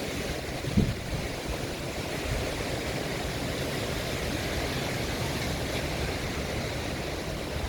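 Strong, gusty wind ahead of a thunderstorm, rushing through trees and buffeting the microphone with a low rumble. There is one sharp buffet about a second in.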